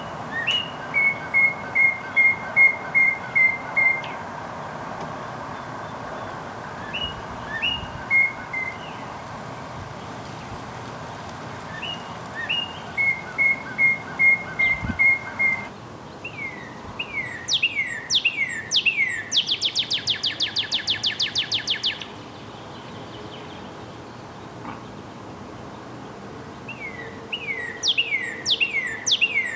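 Northern cardinal singing in separate phrases: runs of repeated clear whistled notes, then a series of steeply falling slurred whistles that run into a fast trill a little past halfway, with more falling whistles near the end.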